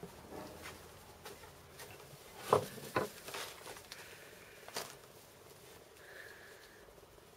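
Hens dust-bathing: faint scratching, rustling and pattering of dry soil and grass as they shuffle and flick dirt, with a louder flurry about two and a half to three seconds in.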